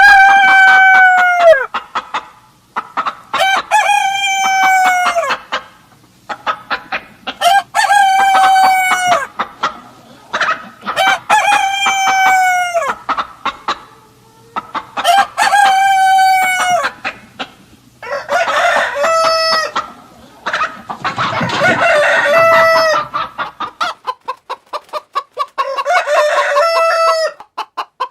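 Roosters crowing over and over, about eight long crows each ending in a falling note, with short clucks from chickens in between.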